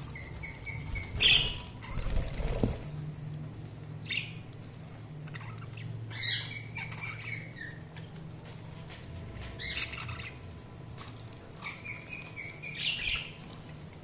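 Budgerigars chirping in several short bursts of quick, repeated high notes. A louder, noisy rustling flurry comes about two seconds in.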